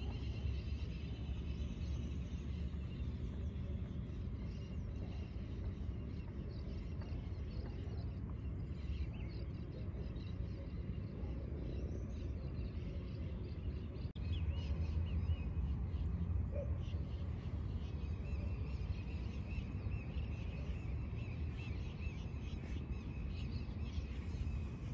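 Outdoor ambience: a steady low rumble with faint bird calls above it, broken by a brief dropout about halfway.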